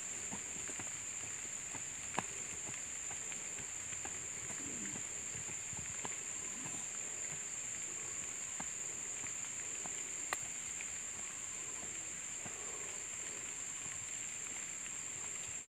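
Steady high-pitched drone of insects, such as cicadas or crickets, in the bushes, with scattered light clicks over it.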